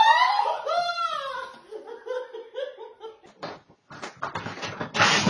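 A person laughing in a run of rising and falling ha's that fades after about two seconds. Then comes a series of clicks and knocks, with a loud rustling burst near the end.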